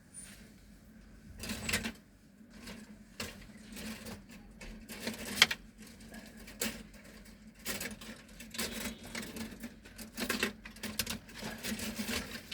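Irregular clicks, taps and short rustles at uneven spacing, as of things being handled, with one sharper click about five seconds in, over a faint steady low hum.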